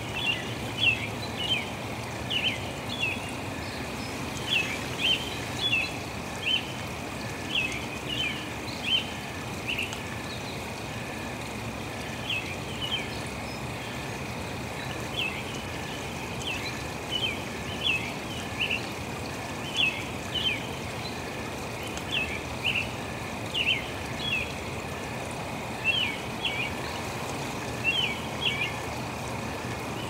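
Nature soundscape of steady rushing water with many short, high chirps from small animals, often in pairs, and a faint steady high tone underneath.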